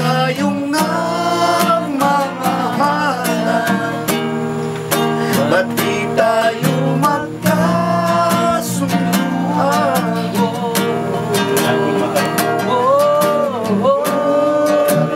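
Music: acoustic guitar strumming chords steadily, with a melody line bending in pitch above it.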